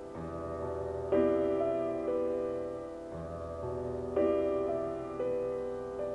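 Slow, gentle keyboard music in a piano sound: chords are struck every few seconds and left to fade, over held bass notes.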